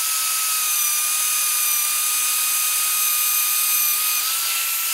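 Rotabroach Panther magnetic drill running, its annular cutter cutting through a steel beam: a steady high-pitched whine over a noisy cutting hiss, the pitch rising slightly about four seconds in.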